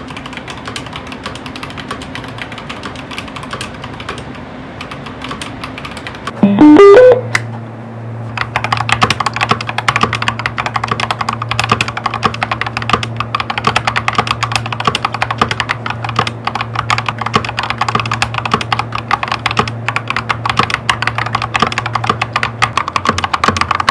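Fast, continuous typing on an Akko Tokidoki mechanical keyboard, with soft background music underneath. About six and a half seconds in, a brief, loud rising tone sounds, and after it the keystrokes are louder and closer.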